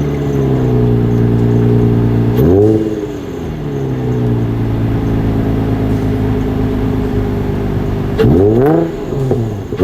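2003 Nissan 350Z's 3.5-litre V6 through a Nismo S-Tune performance exhaust, revved and held at a steady raised rpm. Quick throttle blips come about two and a half seconds in and several more near the end.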